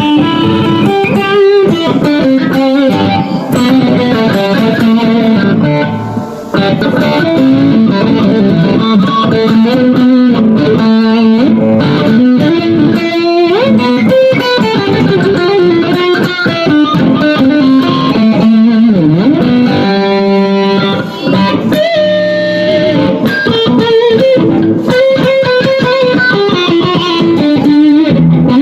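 Electric guitar music played loud through a Spark 2 guitar amplifier, a continuous run of single-note melody lines.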